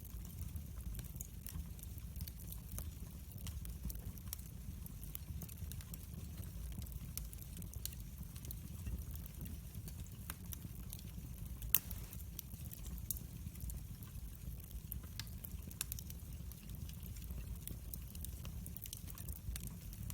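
Wood fire burning in a fireplace, crackling with a steady low rumble and scattered small pops, and one louder crack about twelve seconds in.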